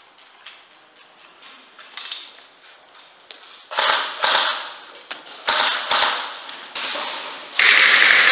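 Airsoft guns firing: faint quick clicks at first, then several loud sharp shots from about four seconds in, with a longer rush of noise near the end.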